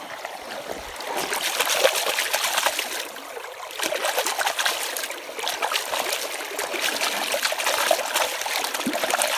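A hand swishing and splashing in fast-flowing creek water, rinsing the mud off a stone drill point, over the steady trickle of the current. The splashing eases briefly about three seconds in.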